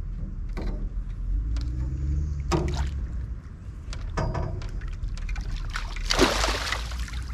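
Water splashing as a hooked silver carp is drawn to the boat, loudest about six seconds in when the fish thrashes into the landing net.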